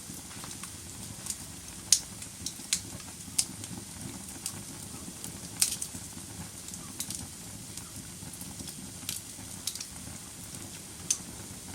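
Wood fire burning in a fireplace: a steady low rush of flames with irregular sharp crackles and pops of burning wood, the loudest about two seconds in and near the middle.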